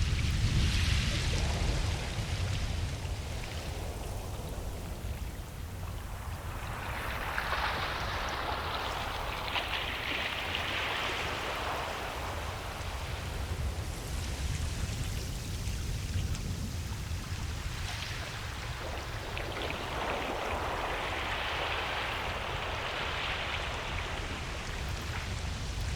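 Ocean waves breaking and washing up on a beach: a steady low rumble of surf with rushing swells, one near the start, one about seven seconds in and another about twenty seconds in.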